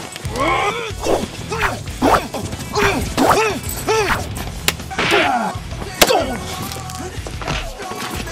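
Staged martial-arts fight sounds: a string of short shouts whose pitch rises and falls, mixed with sharp hits and strikes, the sharpest about six seconds in, over a low background of music.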